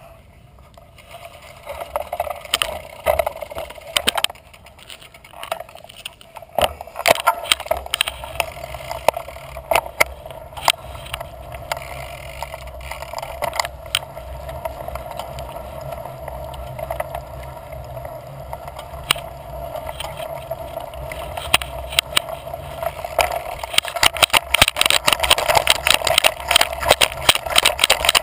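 Mountain bike being ridden, heard from a camera mounted on the bike: steady tyre and wind noise with frequent sharp clicks and rattles from the bike and mount. The rattling grows dense and louder near the end as the knobby tyre goes onto a rough stone trail.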